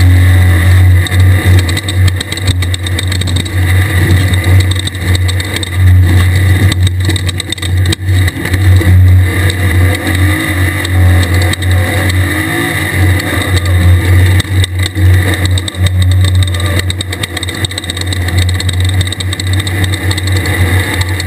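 Air-cooled Volkswagen 1600 flat-four in a 1/2-1600 class desert race buggy, running hard with the revs rising and falling, with knocks and rattles now and then.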